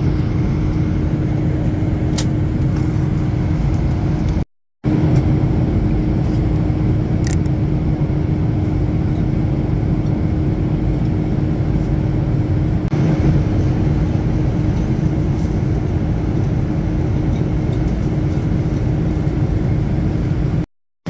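Steady aircraft cabin noise of a Boeing 777-300ER in flight, a deep engine and airflow roar with a steady hum in it. Two short gaps of complete silence break it, about four and a half seconds in and near the end.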